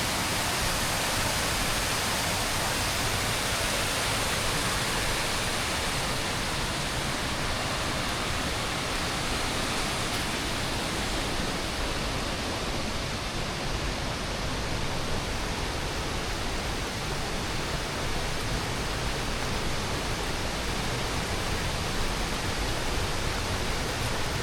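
St Nectan's Kieve waterfall: a steady rush of falling water with no pauses.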